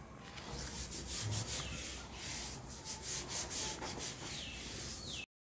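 A hand rubbing an oil-soaked sheet of A4 paper pressed against a second sheet, the paper swishing in repeated strokes as the excess oil is blotted off. The sound cuts off suddenly near the end.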